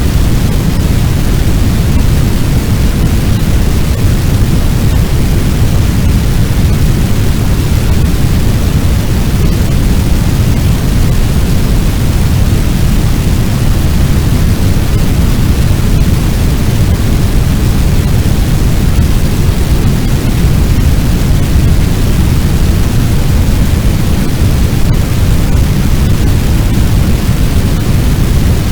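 Fire sound effect: a steady, deep rushing noise like a large blaze, with no crackles or pops and no change throughout.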